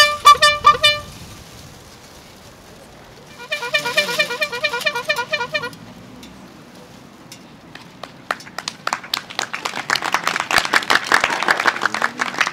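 Two rapid runs of short, high-pitched comic toots, the first dying away about a second in and the second starting about three and a half seconds in, each note bending in pitch. From about eight seconds in, a crowd claps, growing louder.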